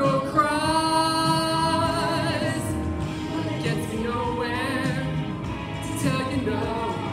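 Pop song with a female singer over a steady backing track. She holds one long wavering note near the start, then sings shorter phrases.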